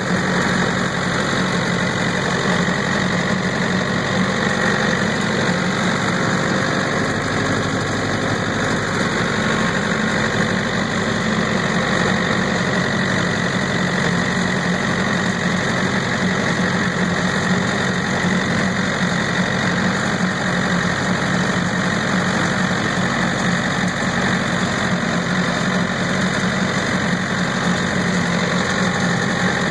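Tractor engine running steadily while it drives a rotary cutter (bush hog) through dry field grass, heard from the tractor with an even hum that does not change.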